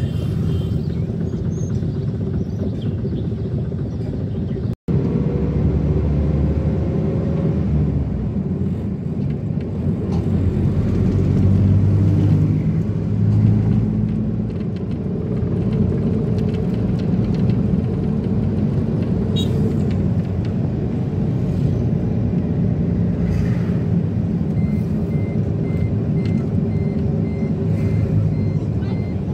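Steady engine and road rumble inside a moving minivan. A split-second dropout comes about five seconds in, and a regular high electronic beeping, about two beeps a second, starts near the end.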